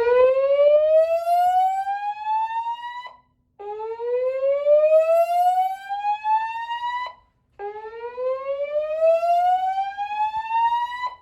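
Gentex speaker strobes, driven by a Notifier NFS2-640 fire alarm panel with DVC voice, sounding a slow-whoop evacuation tone. Three rising sweeps play, each about three and a half seconds long, with a short gap between each.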